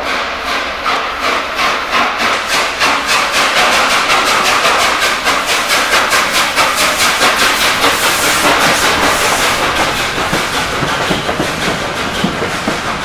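LNER A3 'Flying Scotsman', a three-cylinder steam locomotive, passing slowly under steam with an even exhaust beat of about three chuffs a second. A rush of steam hiss comes about eight seconds in, and near the end the carriage wheels knock over the rail joints.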